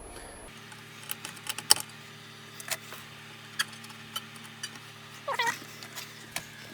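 A cat meows once, a short rising-and-falling call, a little past five seconds in. Scattered light clicks and taps and a faint steady hum run underneath.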